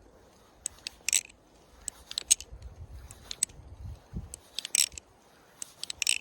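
Balisong (butterfly knife) being flipped: the handles click and clack against each other and the latch in irregular clusters of sharp metallic clicks. The knife has no blade tap and almost no play.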